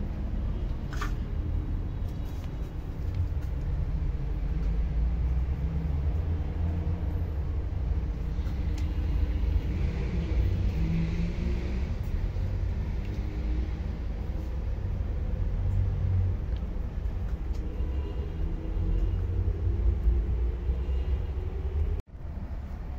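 Steady low rumble of street traffic, with faint engine tones rising and falling over it.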